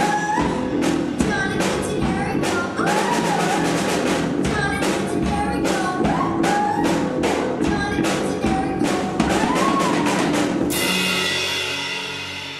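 Rock band of electric guitars, bass guitar and drum kit playing the last bars of a song with a sung vocal line over a steady drum beat. About eleven seconds in it hits a final chord with a cymbal crash that rings out and fades.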